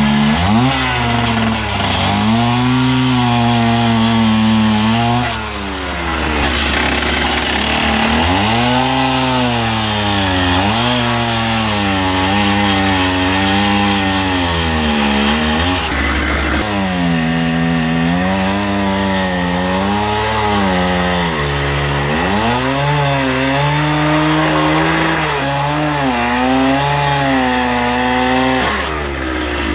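Small petrol engine of a handheld power tool running, its pitch repeatedly rising and sagging as it is loaded and eased. A steady high hiss joins it about halfway through.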